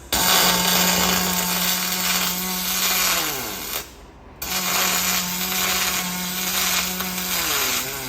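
Fronius MIG welder running on aluminium in two welding runs: the arc strikes abruptly with a steady buzzing crackle, the pitch falls away as the welder ramps down at the end of each run, and a second run starts after a gap of about half a second.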